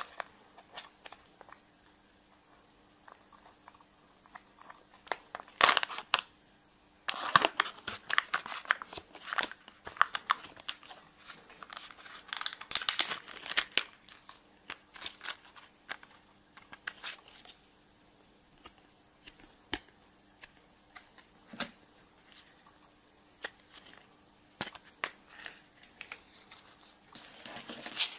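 Surprise-egg wrapper crinkling and tearing as it is unwrapped by hand, in irregular bursts with sharp little clicks and snaps, busiest around the middle.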